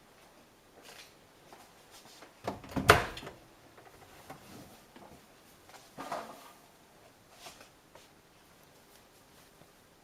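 Front-loading washing machine door and laundry being handled: a loud clunk with rustling about three seconds in, and a softer clatter about six seconds in.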